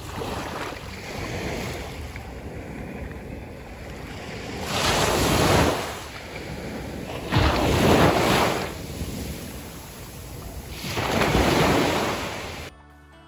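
Small sea waves breaking and washing up a sandy beach: a steady wash of surf with three louder surges about every three seconds as each wave comes in. The sound cuts off suddenly just before the end.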